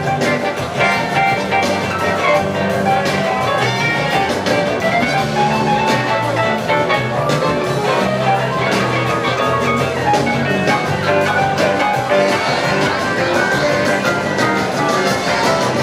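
Live band playing a blues-funk groove, with a clavinet soloing in quick, clipped notes over bass, drums and electric guitar.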